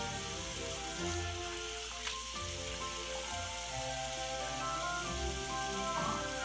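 Steady hiss of water running from a bathroom tap while hands splash water through hair and over the face, with a couple of brief splashes, under background music of sustained notes.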